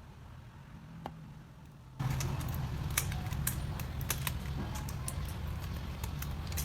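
Quick, irregular light clicks and taps from hands handling a phone and its parts, over a steady low hum that starts about two seconds in.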